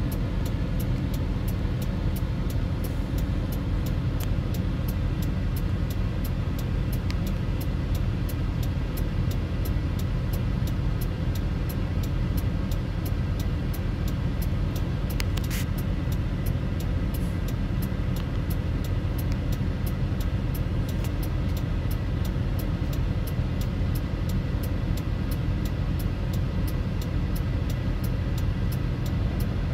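Steady low rumble of an idling vehicle engine, with a faint, fast, regular ticking over it.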